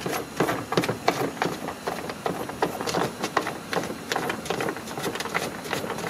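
Quick irregular plastic clicking and scraping as a round cargo-net anchor is worked loose from a 2012 Dodge Journey's rear cargo-area trim panel, several clicks a second.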